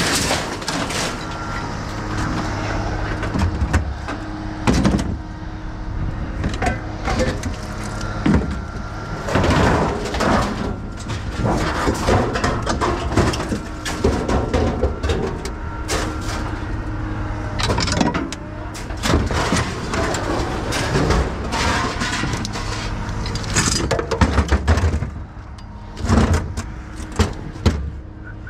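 Scrap metal being unloaded by hand from a pickup bed: irregular clanks and crashes as steel suspension parts and chain-link fencing are thrown onto a pile of old appliances, over a steady engine hum.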